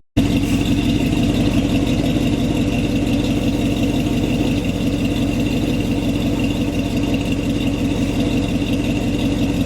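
1966 Chevrolet pickup's engine idling steadily. The sound cuts out for a split second at the very start, then runs on evenly, with a faint steady high whine over it.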